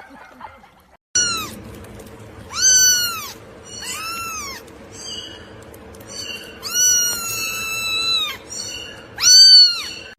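A cat meowing repeatedly: several high meows, each rising and falling in pitch, with fainter meows between. The meows start about a second in, and one in the second half is held for about a second and a half.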